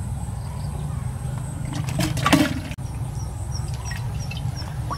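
Water splashing and sloshing, loudest in a burst about two seconds in, over a steady low rumble. A short run of faint high chirps repeats several times in the second half.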